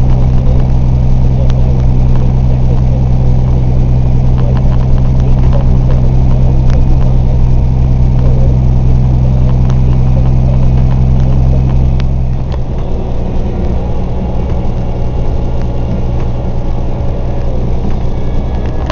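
Heavy truck engine droning steadily from inside the cab while driving; about twelve and a half seconds in its note changes and it gets a little quieter.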